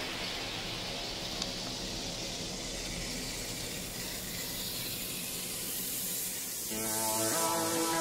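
Redcat Everest RC 4x4 crawler driving through tall wet grass: a steady hissing rustle of grass against the body, with a low whir from the drive. Electronic music comes in near the end.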